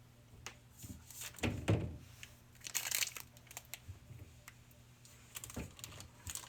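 Drinks and their plastic packaging being handled in a fridge: crinkling plastic, scattered clicks, and a heavier thud about a second and a half in as something is set down on a shelf.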